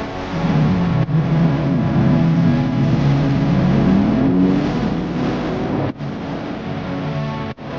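200cc motorcycle engine running and being revved, its pitch rising and falling, cut off abruptly twice.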